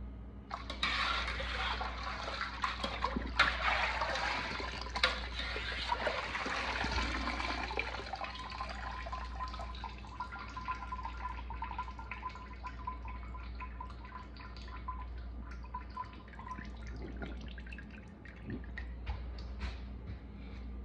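Cooking water pouring and dripping off a wire skimmer full of boiled chitterlings lifted from the pot, with a few sharp clicks. The splashing is heaviest for the first several seconds, then thins to trickling and scattered drips.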